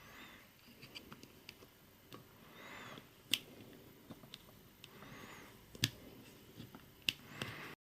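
Quiet bench work on small parts: light clicks and taps of a small tool and plastic pieces being handled, with three sharper clicks in the second half, as a small screw is worked into the printed nose-gear assembly.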